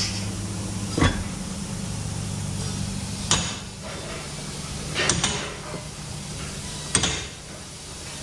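About five sharp knocks, spaced a second or two apart, from tools working the rear suspension arm hardware under a Nissan 350Z. A steady low hum runs beneath them and stops near the end.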